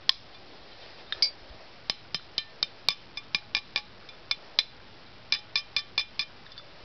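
Die-cast metal model train body being tapped, a couple dozen light metallic clinks in uneven groups, each ringing briefly with a clear pitch. The ringing tap is the sign that the body is metal rather than plastic.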